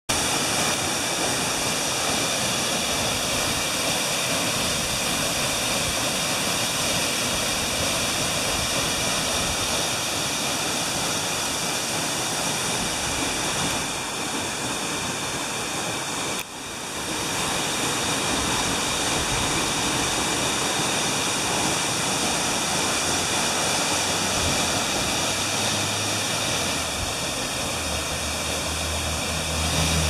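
Waterfall pouring steadily into its plunge pool, a constant loud rush of water, running full after rain.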